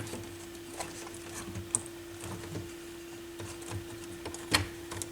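Small clicks and knocks of a part being fitted back into a stereo receiver's chassis by hand, with one sharper click about four and a half seconds in, over a steady low hum.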